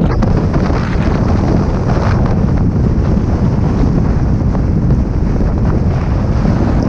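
Loud, steady wind buffeting the microphone, a low rumbling rush with no break.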